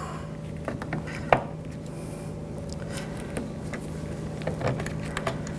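Light clicks and taps of a new exterior door handle being worked into a BMW X5's front door, the sharpest about a second in, over a steady low hum.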